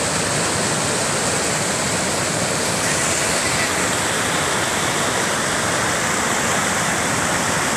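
Mountain stream rapids rushing and splashing over boulders below a waterfall: a loud, steady rush of white water.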